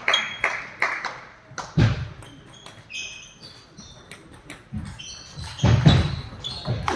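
Racket-sport play in a hall: a few quick sharp ball taps in the first second, then high squeaks of shoes on the floor and a couple of dull thuds of footwork and ball.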